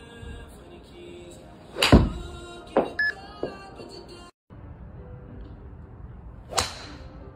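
A golf club strikes a ball with one sharp, loud crack about two seconds in, followed by a few lighter knocks. After a brief cut, a second club strike comes near the end. Quiet background music runs under both.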